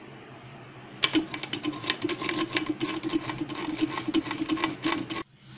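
Steel spoon scraping rapidly against a fine metal-mesh strainer, pushing thick blended raw-mango pulp through the mesh. The quick rattling run of scrapes starts about a second in and stops suddenly near the end.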